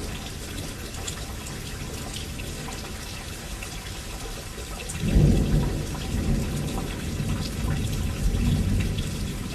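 Steady rain falling, with scattered drips. About halfway through, a low rumble of thunder starts suddenly and rolls on to the end, swelling and easing.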